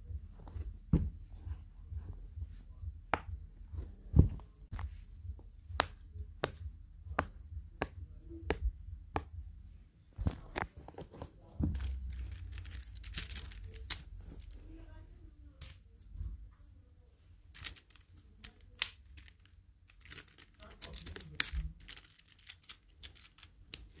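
Fingers pressing the bubbles of a silicone pop-it fidget, giving a steady run of soft pops about every half second. Later come quicker, irregular clusters of plastic clicks as a plastic infinity cube is folded over and over.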